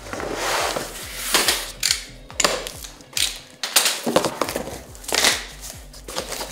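A large cardboard television box being gripped and shifted on a tabletop: irregular scrapes, rubs and knocks of cardboard, with sharper thumps about once a second.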